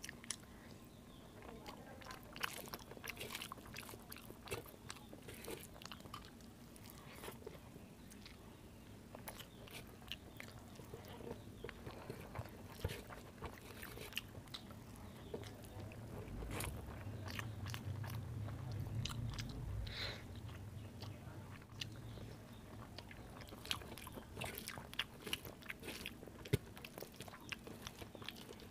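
Close-up eating sounds of rice mixed with curry eaten by hand: wet chewing and many small lip smacks and mouth clicks, with fingers squishing rice on a steel plate. A low hum swells for a few seconds past the middle.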